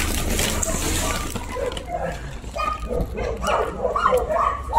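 Dogs barking and yipping in short repeated barks that come thicker from about three seconds in, with a rustling hiss at the start.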